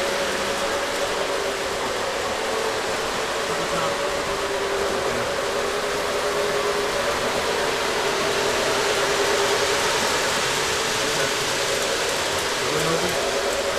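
Model trains running on the layout's track: a steady rolling rumble with a steady hum.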